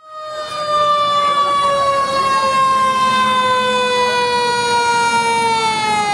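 Fire truck siren sounding one long, loud tone that slowly falls in pitch, sinking further near the end.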